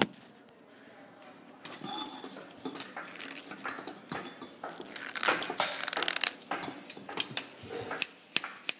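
Small collapsible fishing rod being worked by hand to collapse it: a dense run of clicks, clatter and light metallic rattling as its sections are pushed together, starting about two seconds in.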